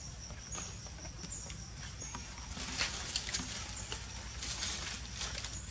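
Outdoor ambience: a short, high chirp from an insect or small bird repeats about every three-quarters of a second over a steady low rumble. Two louder bursts of rustling come about halfway through and again near the end.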